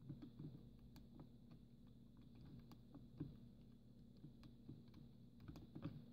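Near silence: a faint steady low hum with scattered soft clicks.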